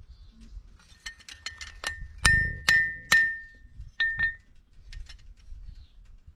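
Farrier's hammer striking a steel horseshoe, each blow ringing with a clear metallic tone. A run of light taps comes first, then three loud ringing strikes, then two more shortly after.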